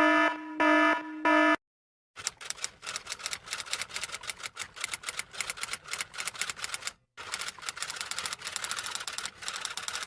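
Rapid typing: a dense, irregular run of sharp key clicks, breaking off briefly about seven seconds in. Before it, in the first second and a half, come three short pitched honks.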